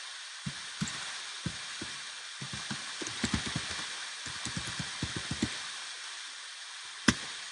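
Typing on a computer keyboard: a run of irregular keystrokes, then a pause and a single louder key click near the end, over a steady hiss.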